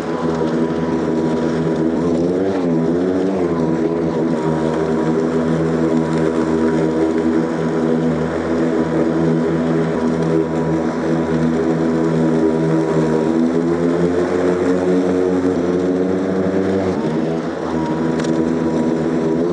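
Toro commercial battery lawnmower running under load as it cuts and mulches damp grass: a steady motor-and-blade hum whose pitch wavers briefly a couple of seconds in and shifts again near the end.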